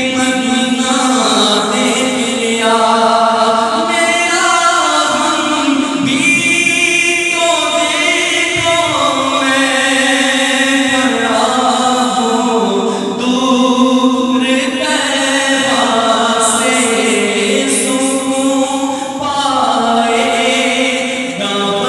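A man singing an Urdu naat without instruments into a microphone, amplified through a PA system, drawing out long melismatic notes in a devotional chant-like melody.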